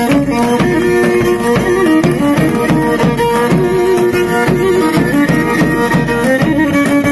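Live Pontic folk dance music: a Pontic lyra plays the melody over the regular beats of a daouli, a large double-headed drum.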